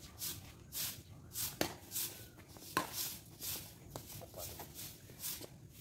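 Two sharp badminton racket strikes on a shuttlecock, a little over a second apart. Behind them runs a faint hissing pulse, about two a second.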